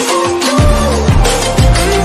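Background music: a gliding melody over a heavy, pulsing bass.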